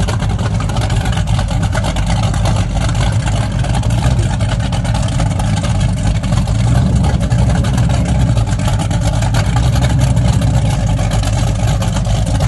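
Twin naturally aspirated 598-cubic-inch short-deck big-block Chevrolet V8s in a Baja powerboat, running at a steady pitch and level.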